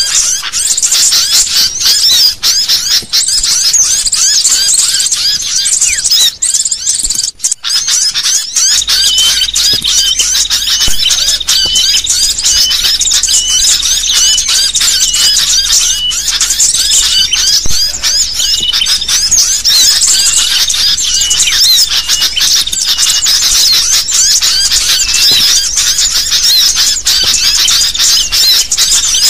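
Sooty-headed bulbuls (kutilang) in an agitated, noisy chorus: many overlapping high, quick chirps and squeaky calls with no pause. For several seconds near the middle, one note is repeated over and over at the same pitch. The calls cut out briefly about seven seconds in.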